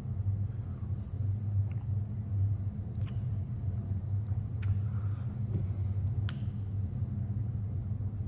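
A steady low hum with a few faint clicks and taps scattered through it.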